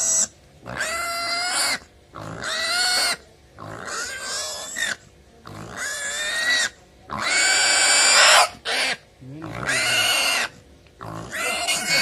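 A young pig squealing in distress while held down for castration: loud, high-pitched screams about a second long, coming one after another with short breaks, the loudest just past the middle.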